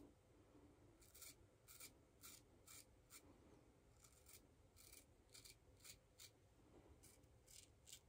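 Faint scratchy scraping of a Gillette Old Type open-comb safety razor cutting through lathered upper-lip stubble, in short strokes at about two a second.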